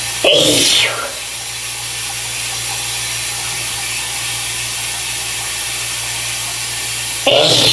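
A man sneezing twice, once about half a second in and again near the end, each a short loud burst that falls in pitch, over the steady hiss of a running shower.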